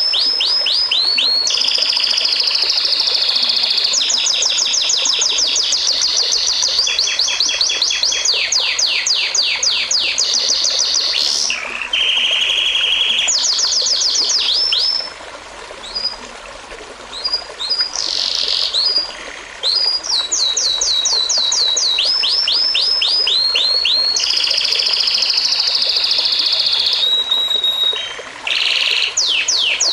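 A songbird singing a long, loud song of rapid trills, each a fast run of the same downward-sweeping note repeated many times before switching to another note, with a couple of short pauses.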